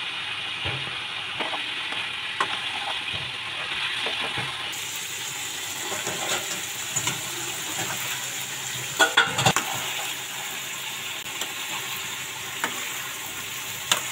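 Chicken frying in oil in a metal kadai, sizzling steadily, while a metal spatula stirs and scrapes against the pan with scattered clicks. A brief cluster of louder clatters comes about nine seconds in.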